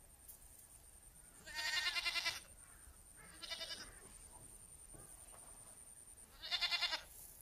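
Goat bleating three times, each a quavering call under a second long; the first, about a second and a half in, is the longest.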